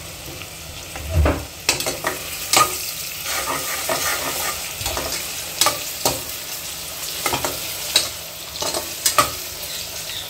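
Sliced onions sizzling in hot oil in an aluminium pressure cooker, being fried toward light golden. A steel slotted spoon stirs them, scraping and knocking against the pot at irregular moments over the steady sizzle.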